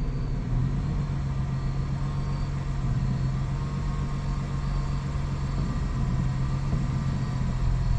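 A car's engine running at idle as the car creeps along slowly, heard from inside the cabin as a steady low hum.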